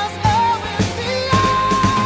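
Pop-rock song with a singing voice over a steady drum beat; the singer holds one long note from a little past halfway.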